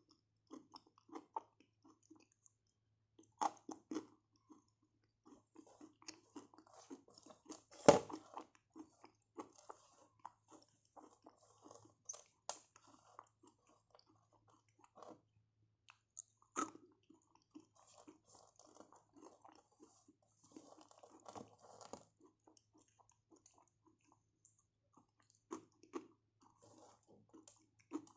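A person biting and chewing dry clay, with irregular crisp crunches; the loudest is a sharp bite about eight seconds in.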